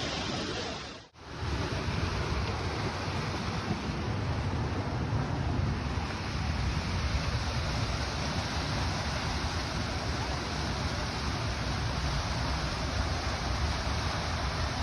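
Steady rushing noise of a mountain waterfall, with wind buffeting the microphone. It cuts out briefly about a second in, then resumes unchanged.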